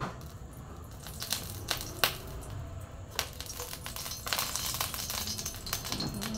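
Hot oil crackling and popping in a stainless-steel wok as it heats, thickening into a dense crackle from about three seconds in. Before that come a few sharp separate clicks, the loudest about two seconds in.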